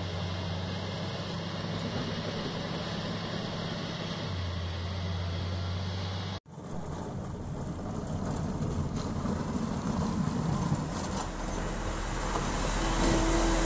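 Heavy machinery's diesel engine running steadily, its note shifting slightly about four seconds in. After an abrupt cut about six seconds in, a noisier machine rumble follows and grows louder toward the end.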